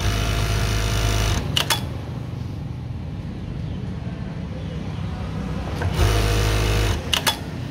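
JACK K4 industrial coverstitch (interlock) sewing machine stitching in two short bursts of about a second each, with a steady motor hum. Each burst ends in a quick couple of clicks as the automatic thread trimmer cuts the thread and the presser foot lifts. The machine runs smoothly.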